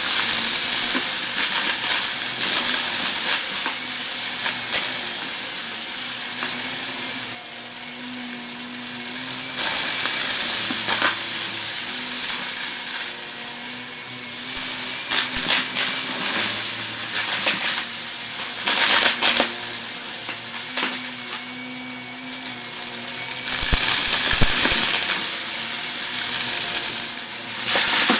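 Vacuum cleaner running over crunchy debris: a loud rush of air over a steady motor hum, with a dense crackle of small bits rattling up into the cleaner. The rush swells and dips a few times.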